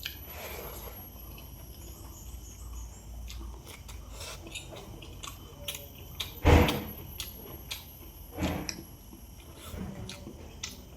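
Close-miked eating sounds of a person eating a rice and fish curry meal: quiet chewing and mouth clicks. Two louder short sounds come about six and a half and eight and a half seconds in.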